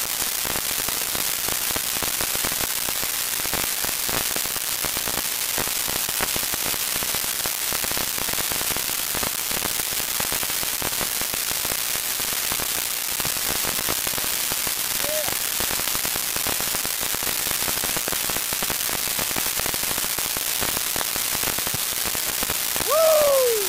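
A steady hiss with faint crackling all through. Near the end comes one short shout that falls in pitch.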